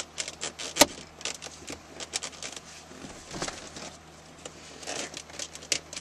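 Sharp plastic clicks, snaps and rattles as the shift boot and its console trim are worked loose by hand, with one loud snap just under a second in.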